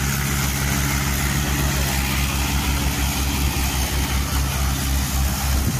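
Two Mahindra 575 DI tractors' diesel engines running steadily under load, pulling 7-foot rotavators that churn the soil, with a loud even rushing noise over the engines' low drone.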